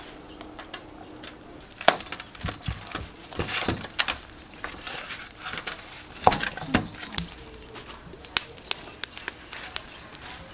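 Hands working marinade into a whole raw chicken in a stainless steel bowl: irregular wet handling noises with scattered sharp knocks and clicks against the bowl.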